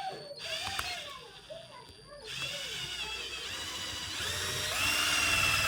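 Electric drill running as a screwdriver: a short burst, then a longer run from about two seconds in whose whine steps higher twice before it stops.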